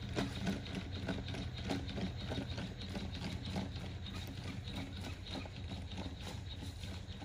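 Vision 60 quadruped robot walking over dry leaves and twigs: a quick, uneven patter of footfalls, several a second, over a steady low hum.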